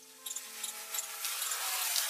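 Hands rubbing and scraping fabric and a thin sheet of material, a hissing, rustling noise that builds through the second half and is loudest near the end. Background music with held notes fades out about a second in.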